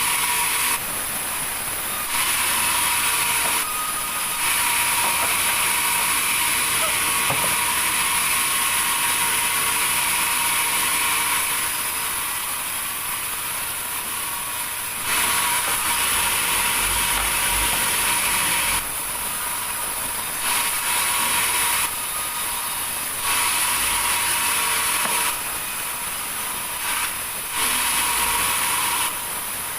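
Sawmill machinery running continuously, its sound stepping up and down between two levels every few seconds.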